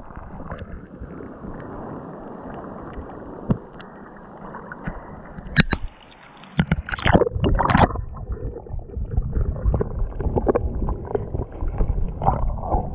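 Small sea waves sloshing and lapping against a waterproof action camera held at the water's surface, heard muffled. About six to eight seconds in come a few sharp splashes as it dips under, and after that a low underwater gurgle and rumble.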